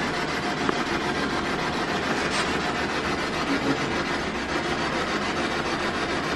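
A spirit box sweeping through radio stations: a steady, rapidly chopped hiss of static.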